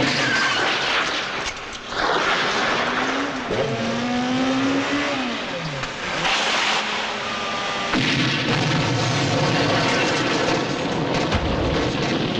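Car engine revving on a film soundtrack, its pitch rising and then falling, amid dense action noise.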